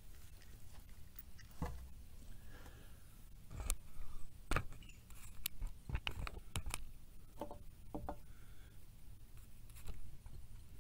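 Handling noise at a wooden picnic table: a series of sharp clicks and knocks, bunched mostly in the middle, with light rustling and a low wind rumble on the microphone.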